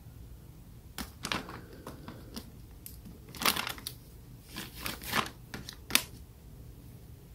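Tissue crinkling and rustling as it is handled while wiping a kitten: a scatter of short, irregular crackles, with the sharpest one near the end.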